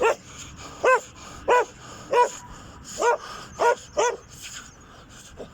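A small dog barking repeatedly, about seven sharp barks at an uneven pace of one or two a second, each rising and falling in pitch. The barking stops about four seconds in.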